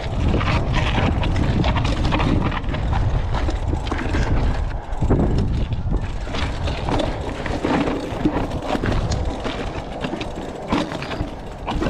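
Mountain bike riding down rocky single track: tyres rolling and crunching over rock with a steady clatter of chain and bike parts, under a heavy rumble of wind on the microphone.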